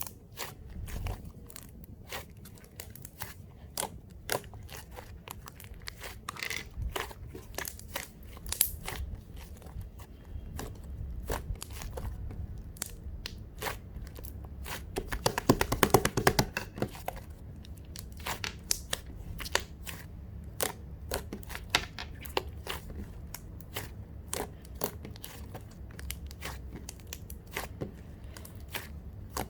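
Crisp crunching and crackling of a fresh apple: sharp, scattered crunches throughout, with a dense run of rapid crackles about halfway through.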